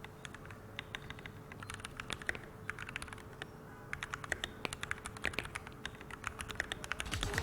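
Typing on a FL-Esports CMK68SAM mechanical keyboard fitted with Kailh Box Cool Mint switches: rapid key clacks in bursts, with short pauses between runs.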